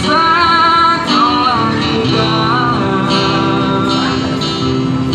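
Man singing a pop ballad while strumming an acoustic guitar, his voice and guitar amplified through a small PA speaker.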